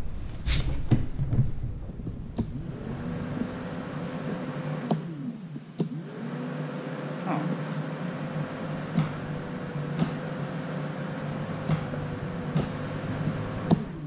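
Honda Fourtrax ATV's electric starter whirring on two presses of the start button, a short one of about two seconds, then a longer one of about eight seconds. Each time it spins up to a steady whine and winds down on release, and the engine does not fire, which the owner takes for a dead battery.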